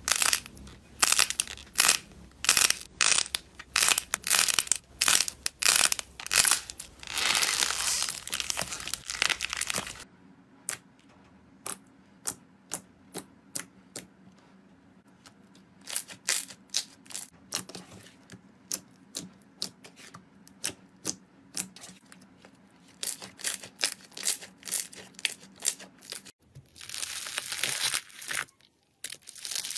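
Slime being squeezed and pressed by hand, giving rapid crackling and popping clicks. The sound changes abruptly about a third of the way in, to sparser pops over a faint hum, and again near the end, as one slime clip gives way to the next.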